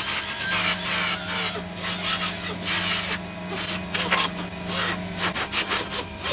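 Power grinder grinding down a spot on a carbon fibre bonnet, the motor running steadily while the cutting noise comes and goes in short uneven passes as the material is taken off bit by bit.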